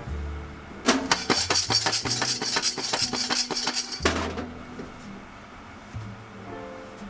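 Green coffee beans rattling and skittering inside a glass-lidded saucepan as the pan is shaken, a dense burst of clicks lasting about three seconds and starting about a second in. The beans are still in the drying stage of a pan roast, well before first crack.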